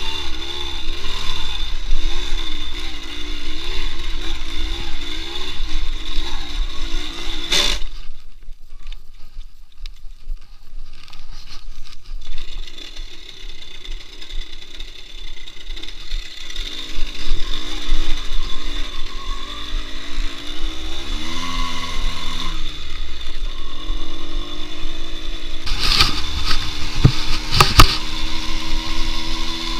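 Delta RMR 24's engine running while being ridden, its pitch wavering, then rising and falling with the throttle. It goes much quieter for a few seconds about a quarter of the way in, and there are a few sharp knocks near the end.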